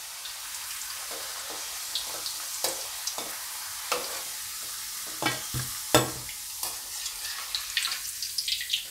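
Hot oil sizzling steadily in a steel kadai as purple yam slices are briefly par-fried, with scattered sharp clinks of a perforated steel skimmer knocking against the kadai and a steel plate, the loudest about six seconds in.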